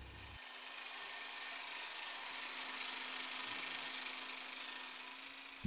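A small corded electric power tool running steadily on a workpiece: a steady hum with an even hiss of cutting or sanding over it, swelling slightly in the middle.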